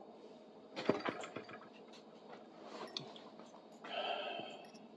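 Light handling noise of metal drill bits: a cluster of knocks and clinks about a second in, another light clink near three seconds, and a short soft rustle near the end.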